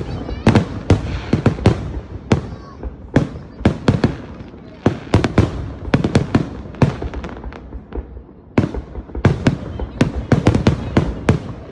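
Fireworks finale: a rapid barrage of bangs and crackles, several reports a second, thinning briefly about eight seconds in before building up again.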